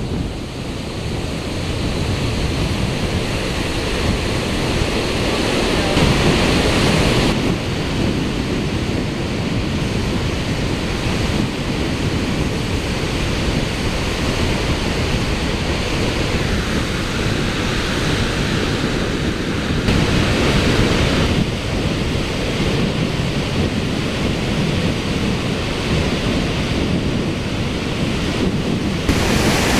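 Waterfall in heavy flow: a loud, steady rush of falling and crashing water, with wind buffeting the microphone. The sound shifts abruptly a few times as the view changes between the brink, the spray cloud and the rapids.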